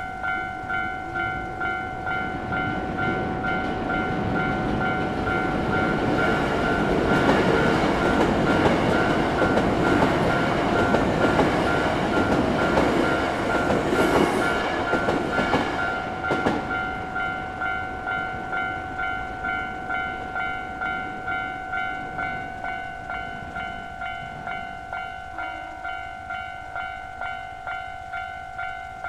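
Japanese level-crossing warning bell ringing, a pitched electronic ding repeating about once every 0.7 seconds. A Hankyu train passes over the crossing from about 5 to 17 seconds in: wheels rumbling and clicking over the rails, loudest around the middle, then fading while the bell keeps ringing.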